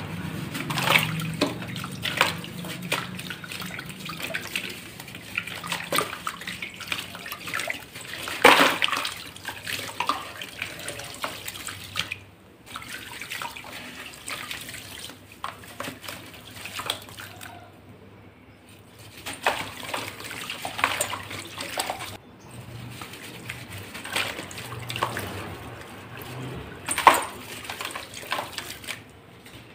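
Hands crushing soaked chunks of dried dirt over a plastic basin of muddy water: a run of wet crunching and crumbling, with crumbs and drips falling into the water. The crunches come in clusters, with the loudest about eight seconds in and another near the end, and two brief lulls between.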